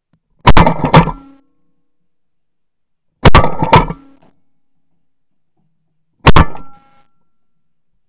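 Three shots from a Benelli SBE3 12-gauge semi-automatic shotgun, about three seconds apart, each a sharp blast with a short ringing tail. The first two are each followed about half a second later by another loud crack.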